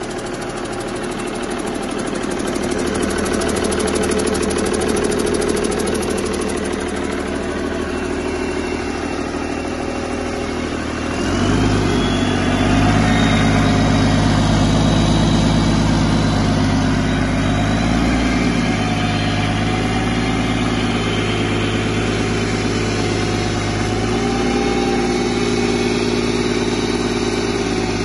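2000 Cummins ISC 8.3-litre inline-six turbo diesel running on a test stand. It idles, then speeds up to a higher, steady run about eleven seconds in, with a high whine rising as it does, and holds there, dipping a little and coming back up later.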